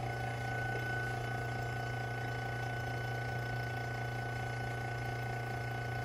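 Vacuum pump running steadily while pumping down a small vacuum chamber: a constant low hum with a few steady higher tones over it.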